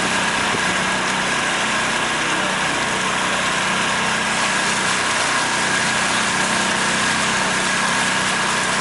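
Pontoon boat's outboard motor running steadily while under way: an even hum with a thin, steady high whine over it.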